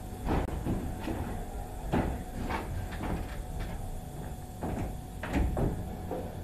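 Footsteps clanking irregularly on a paint booth's steel floor grating, over the steady hum of the booth's ventilation.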